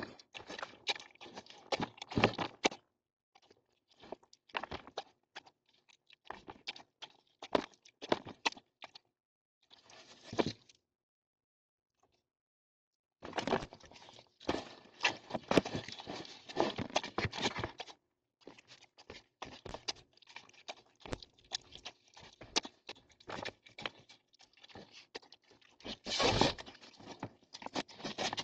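A dog eating the cat food left out: rapid, irregular clicks and clatter of chewing and of the dish being nosed about, in bursts broken by abrupt dead gaps. Heard through a Ring security camera's microphone.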